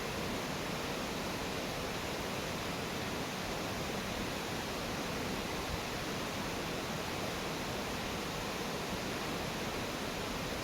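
Steady rushing of a mountain stream, an even wash of water noise with no distinct events.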